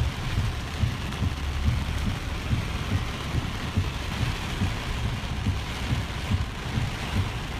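Heavy hurricane rain hitting a moving car's windshield and body, heard from inside the cabin, over an uneven low rumble from the car and the wind.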